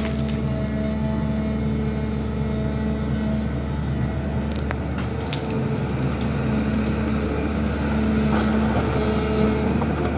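SANY excavator's diesel engine running steadily under work, with a few short knocks from the digging gear. It gets a little louder near the end.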